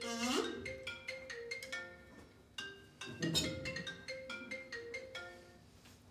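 A short, tinkling melody of struck mallet-instrument notes, xylophone-like, played as a sound cue. It opens with a brief rising, voice-like glide, and a duller knock comes about three seconds in.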